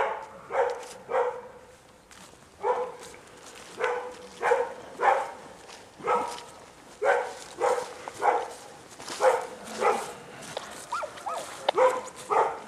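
A dog barking over and over in short runs of two or three barks.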